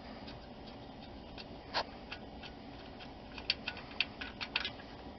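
Light clicks and ticks of hand work at the 6R80 transmission's fill plug as the plug and its fluid level stick are pulled out of the case: one sharp click about two seconds in, then a quick run of several small ticks near the end.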